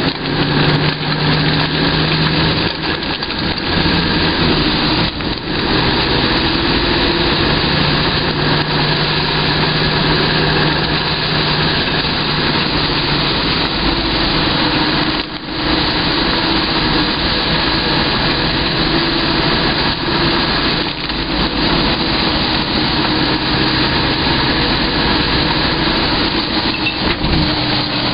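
A vehicle engine running steadily while driving, under a continuous hiss of rain and wet-road noise. The engine note shifts a few times, and the sound dips briefly about halfway through.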